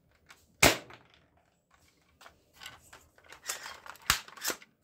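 Plastic toy soft-bullet rifle fired once with a sharp, loud snap about half a second in, then its plastic parts rattle and click as it is cocked by hand, ending in two sharp clicks.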